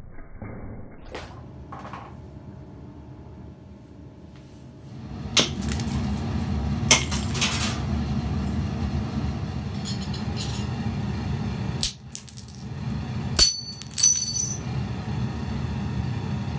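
Broken light-bulb glass clinking on a concrete floor: several sharp clinks, some ringing high, and a short rattle of glass about seven seconds in, over a steady low hum.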